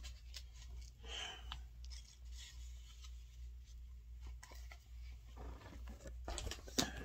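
A phone being handled close to its microphone: faint rustling and rubbing, with a few sharp clicks near the end, over a steady low hum.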